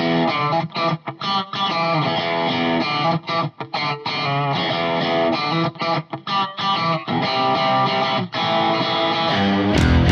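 Background music: a guitar-driven rock track played in short, chopped phrases with frequent abrupt stops. Right at the end the music gets fuller and louder.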